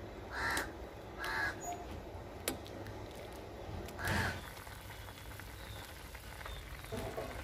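A crow cawing three times: twice in the first second and a half, then once about four seconds in. Under it runs the low bubbling of sugar syrup simmering in a steel pot, with one sharp click in between.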